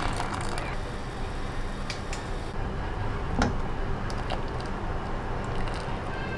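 Light clicks and taps of kitchen utensils over a steady low hum, with one sharper tap about three and a half seconds in.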